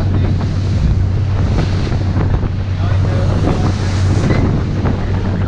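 Lobster boat's engine running with a steady low hum, under heavy wind buffeting on the microphone and waves splashing against the hull as the boat runs through a choppy sea.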